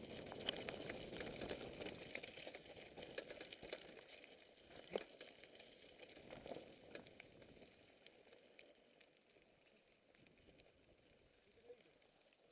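Mountain bike rolling down a loose slate-gravel trail: a faint crunch and rattle of tyres over stones, with scattered clicks and knocks. It fades away over the last few seconds as the bike slows.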